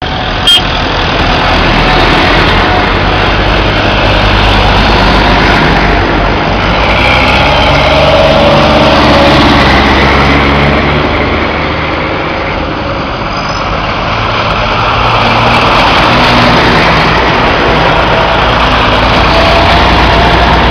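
Diesel farm tractors running as a procession of them drives past one after another, the engine noise swelling as each comes near and easing off in between. There is a sharp click about half a second in.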